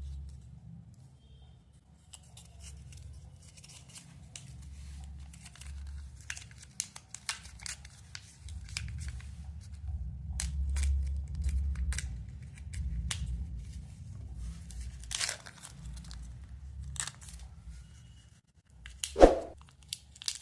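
A Kinder egg's wrapper being torn open and crinkled by hand, with many sharp crackles over a low handling rumble. A louder knock comes near the end.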